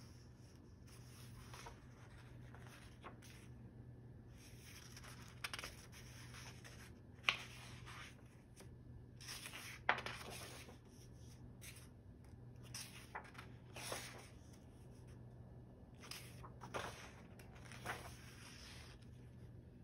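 Paper pages of a paperback photobook being turned by hand: soft rustles and swishes of paper, with two sharper snaps of a page partway through, over a faint steady low hum.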